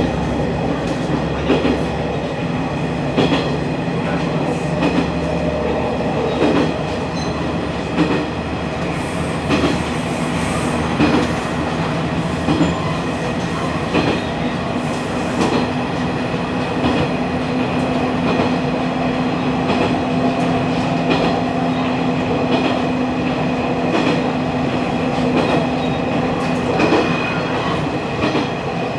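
Diesel railcar running along the line, heard from inside the car. A steady engine drone sounds under a clickety-clack of wheels over rail joints, recurring about every one and a half seconds.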